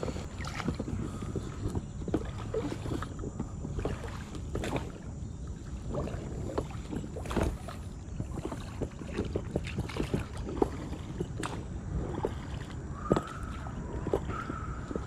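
Water sloshing and splashing around an inflatable float tube as the angler kicks it out across shallow water, with many irregular small splashes and knocks.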